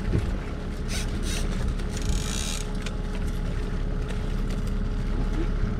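Small outboard kicker motor running steadily at low speed, with a brief rush of hiss about two seconds in.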